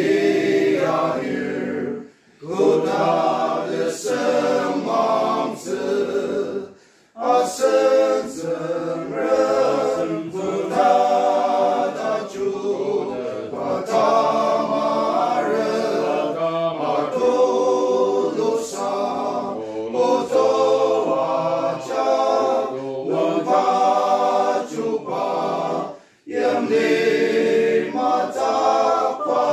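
Men's group singing a hymn in Ao Naga without accompaniment. The singing is broken by short breath pauses between phrases, about two seconds in, seven seconds in and near the end.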